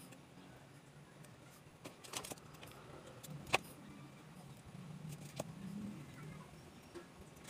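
Faint clicks and taps of metal tweezers handling small parts, one sharper click about three and a half seconds in, over a low steady background hum.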